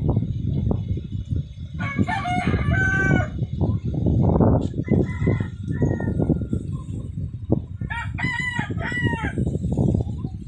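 Roosters crowing twice, each crow about a second and a half long, the first about two seconds in and the second about eight seconds in, over a loud low rumble.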